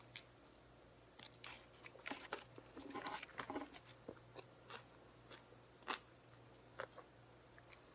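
Faint close-up chewing and biting of a sub sandwich piled with lettuce and other greens: soft crunches and wet mouth clicks, busiest from about one to four seconds in. A faint steady hum lies underneath.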